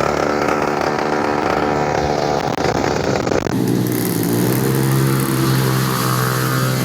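Small single-cylinder mini-motorbike engine running steadily, its pitch shifting abruptly about three and a half seconds in.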